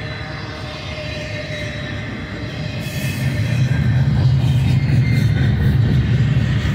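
Double-stack intermodal well cars of a BNSF freight train rolling past: a steady rumble of steel wheels on the rails, growing louder about three seconds in.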